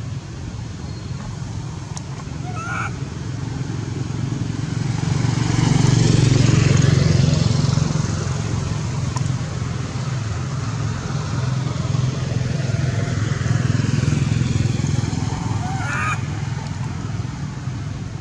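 Motor vehicles passing: a low engine hum that swells twice, about six and fourteen seconds in. Baby macaques give a short high rising cry about three seconds in and again near the end.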